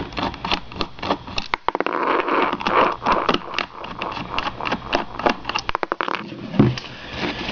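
Small Phillips screwdriver loosening the screws on a laptop hard drive's metal caddy: rapid, irregular clicking and scraping, with a longer stretch of scraping about two seconds in.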